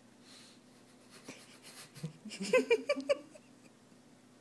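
A house cat chirping: a quick run of about half a dozen short, high calls a little past halfway, the excited chirp a cat makes at prey it is stalking.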